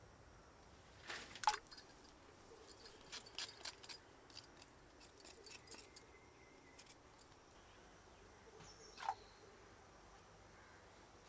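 A small knife scraping the skins off Chinese potatoes (koorkka), with the tubers clicking against each other in a wicker basket: a run of short, light scrapes and clicks, then one short falling sound near the end.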